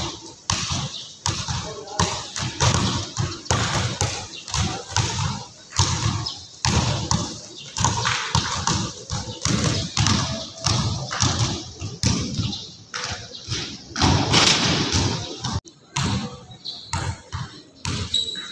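A basketball being dribbled on an indoor gym court, with repeated irregular bounces that ring in the large hall.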